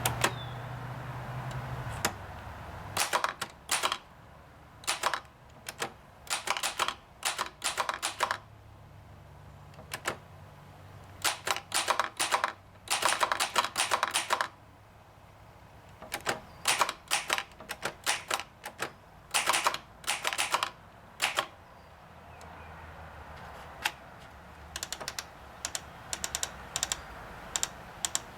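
A 1935 Remington 3B typewriter being typed on, its typebars striking the platen in quick runs of clicks with short pauses between words.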